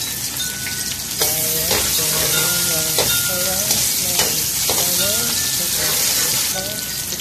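Freshly added raw sliced onions sizzling in hot oil in a kadai, the sizzle swelling about a second in, while a metal spoon stirs them and knocks and scrapes against the pan several times. This is the start of frying the onions until brown and crisp.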